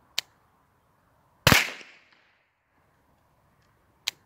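T4E HDR 50 CO2 revolver firing homemade exploding slugs: a short sharp crack, then about a second later a much louder bang that dies away over half a second, and another short crack near the end.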